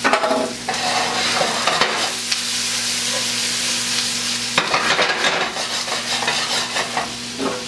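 Sliced onions sizzling in hot oil in a frying pan as they are stirred and tossed with metal tongs, with short clattering and scraping spells at the start and about five seconds in. The onions are being cooked down to caramelize.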